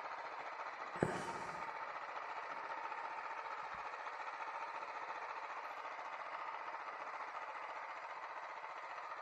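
Mini tractor engine running steadily under load as it pulls a single-bottom plow through the soil, with a sharp click about a second in.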